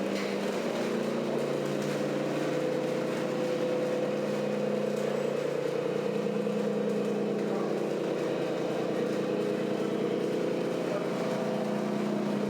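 Simulated truck engine from a radio-controlled scale truck's sound module, running steadily with a few small shifts in pitch.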